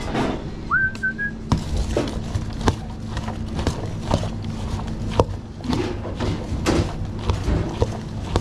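A short whistled note about a second in, jumping up and then held briefly, followed by scattered knocks and clatter of cooking utensils over a steady low hum.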